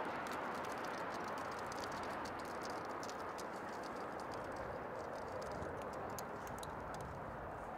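Steady outdoor city background hum with light, irregular ticks and clicks scattered over it.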